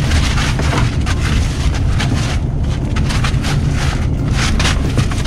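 Steady low road and engine rumble inside a minivan's cargo area at highway speed, with repeated short rustles from goats shifting about on a plastic tarp and hay.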